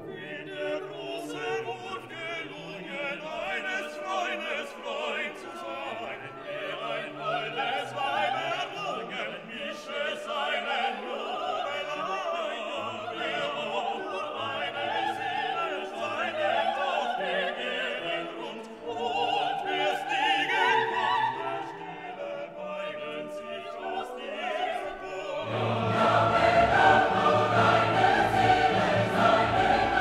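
Background music: classical choral singing with orchestra, swelling louder and fuller with a deeper bass about 25 seconds in.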